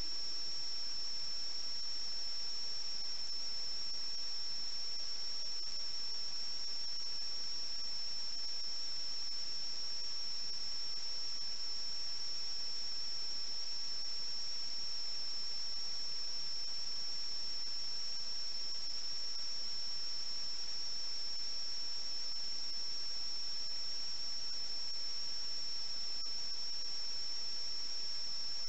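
A steady high-pitched whistle over an even hiss, never changing in pitch or level: noise from the audio channel of an analog FPV video link.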